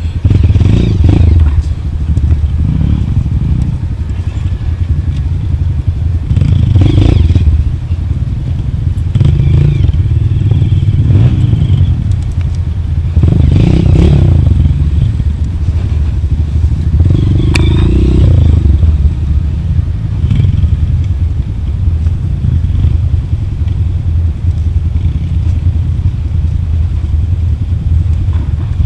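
Off-road motorcycle engine running at low revs while descending a rough trail, rising in swells, with clattering and scraping from the bike going over rough ground.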